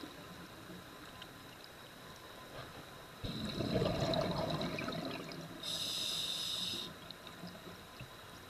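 Scuba diver breathing through a regulator underwater: a burst of exhaled bubbles gurgling for about two seconds, then a short, high hiss of an inhalation through the regulator.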